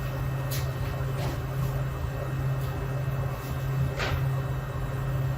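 Steady low kitchen hum with a few light taps and clicks from food being handled while a wrap is filled.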